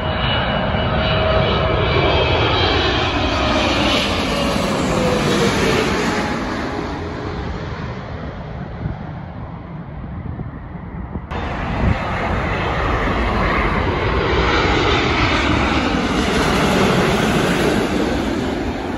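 Jet airliners on final approach passing low overhead: a loud jet engine rumble with a whine that falls in pitch as each goes by. After a sudden cut about eleven seconds in, a second pass swells to its loudest near the end as a Boeing 787 Dreamliner flies almost directly overhead.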